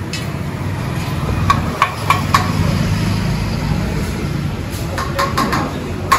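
Steady low engine-like rumble of background machinery or traffic, with sharp ringing metallic clinks: four in quick succession starting about a second and a half in, and another quick run near the end.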